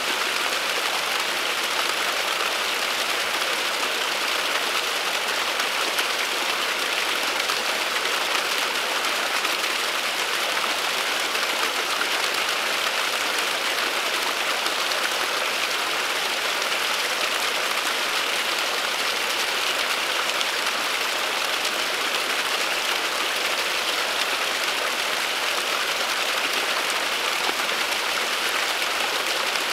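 Small waterfall trickling and splashing down a bank: a steady, even hiss of falling water that does not change.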